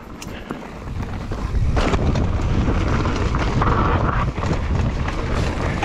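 Wind rushing over the microphone and tyre rumble of a mountain bike riding fast down a rocky dirt trail, swelling louder about two seconds in.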